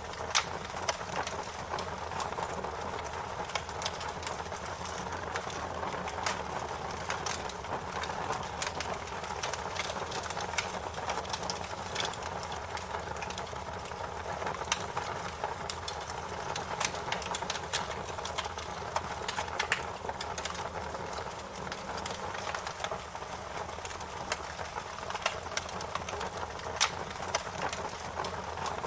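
Wood fire crackling, with frequent sharp irregular pops and snaps over an even hiss.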